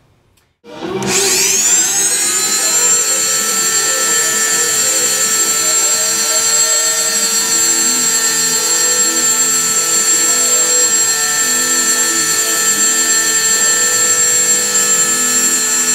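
Electric rotary tool spinning up about a second in, then running at a steady high whine as a small abrasive stone polishes the fingers of a motorcycle clutch basket.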